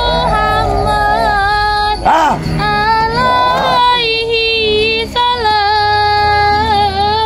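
A high voice singing long, wavering held notes, the pitch sliding between them, over a low steady drone.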